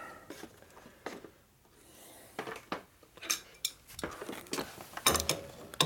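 Steel lathe tools and parts clinking and clattering as they are handled: a string of light metallic clicks that gets busier toward the end.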